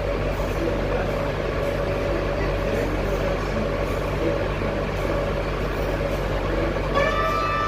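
Subway train running: a steady rumble and rattle of the car in motion. About seven seconds in, a steady high-pitched whine with several tones together sets in and holds.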